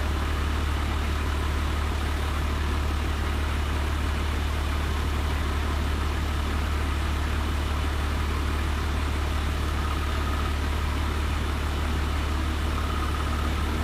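An engine idling steadily, a deep, even hum with no change in speed.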